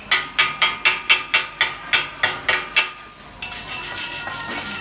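Chipping hammer knocking slag off a fresh arc weld bead on steel plate, sharp metallic strikes at about four a second. The strikes stop about three seconds in, giving way to steadier noise.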